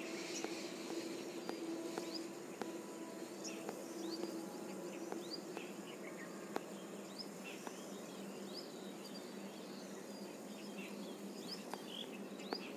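Faint background ambience with scattered short, high chirps, a few light clicks and a low steady hum.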